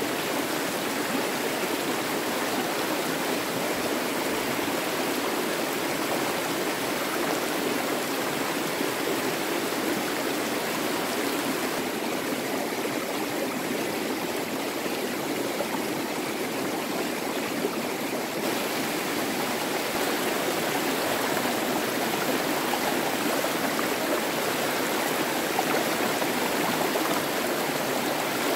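Stream water running steadily, a constant, even rush of flowing water.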